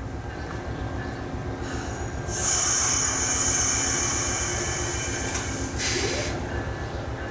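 Train rolling by with a steady rapid low rumble from the wheels. About two seconds in a loud high-pitched metal-on-metal squeal from the wheels starts and holds for several seconds, then a shorter squeal follows near the end.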